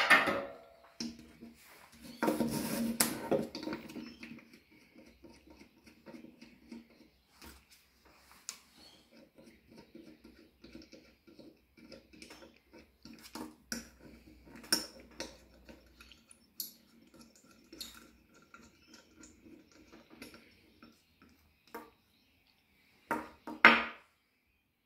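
Metal parts of a Tormek knife jig being unscrewed, taken apart and set down: scattered clicks and knocks of metal on metal and on a plastic mat over a wooden table. The heaviest handling comes about two to four seconds in, and there is a loud cluster of knocks near the end.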